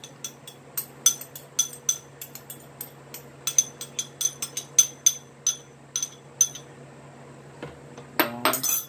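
Steel spoon tapping against a glass bowl, a few ringing clinks a second, knocking chopped onion out into a pan. The tapping stops about two-thirds of the way in, and near the end comes a short, louder clatter of glass and metal.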